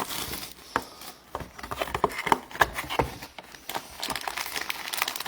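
Trading card pack wrappers crinkling and cards being handled, with irregular short rustles and light clicks.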